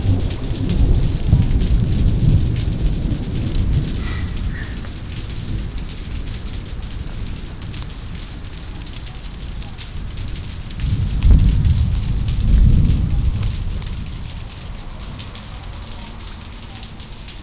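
Thunderstorm: rain falling steadily, with low rumbling thunder in the first few seconds and again, louder, about eleven seconds in.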